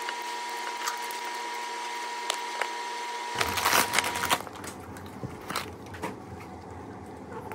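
Steady machine hum with a faint high whine, under light clicks and knocks of glass vials and metal vial caps being handled. A little over three seconds in the hum changes, and the clatter of handling comes forward.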